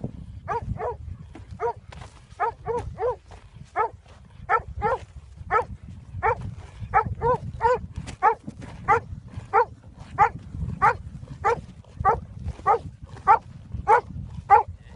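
A dog barking over and over, short high barks about one to two a second, sometimes in quick pairs, over a low rumble.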